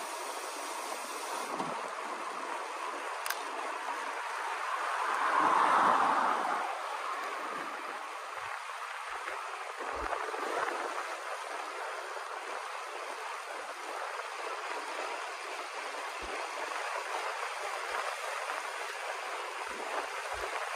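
Steady rush of wind over the microphone, with road noise, on a bicycle descending at speed. It swells louder for a couple of seconds about six seconds in.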